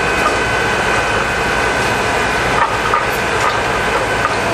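Fire truck engine running steadily to power the aerial platform, a continuous mechanical noise with a thin steady high whine over it. A few light knocks a little past halfway.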